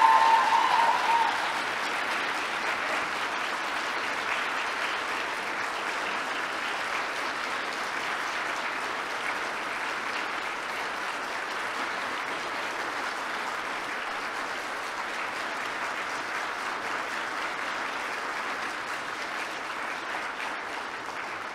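Audience applauding steadily in a standing ovation. A single high held cry or cheer from the crowd rings over the clapping and stops about a second in.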